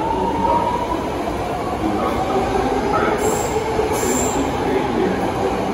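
BART Legacy-fleet train pulling out of the station past the platform, its cars rumbling and clattering over the rails. Two brief high-pitched wheel squeals come around three and four seconds in.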